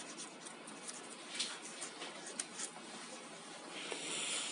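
Cloth rubbing and faintly squeaking on a phone's glass screen, with small clicks of the phone being handled on a silicone mat. A soft hiss swells near the end.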